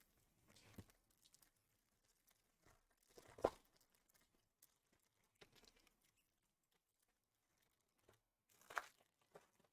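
Faint, scattered rustling and crinkling of trading-card pack wrappers and cards being handled, with two louder crinkles, one about three and a half seconds in and one near the end.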